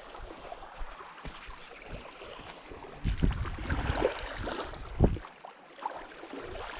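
Water sloshing and gurgling, with dull knocks about three and five seconds in.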